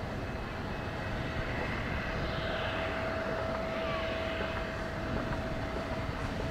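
Turkish Airlines Boeing 777F's twin GE90 turbofans running at takeoff power during its takeoff roll: a steady jet rumble with a faint constant whine.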